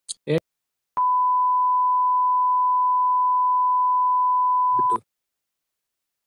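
A steady, single-pitch censor bleep lasting about four seconds, starting about a second in and cutting off sharply, laid over personal details being read out. Just before it comes a brief clipped fragment of speech.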